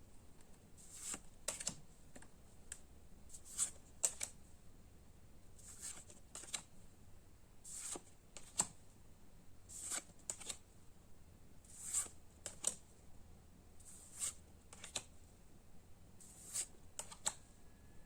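Pokémon trading cards being flipped or slid one after another through the hands, a short papery swish or snap about once a second.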